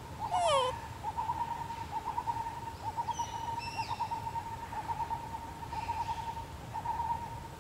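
Forest animal calls: a continuous wavering call held at one pitch throughout, a sweeping call that falls from high to low about half a second in, and a few short high chirps around three to four seconds in.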